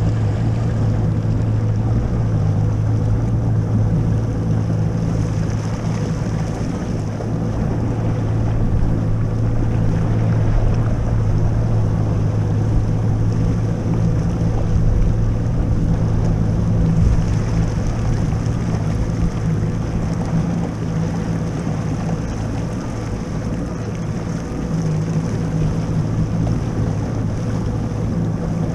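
Jet ski engine running at a steady speed, its pitch holding constant, with wind noise on the microphone over the top.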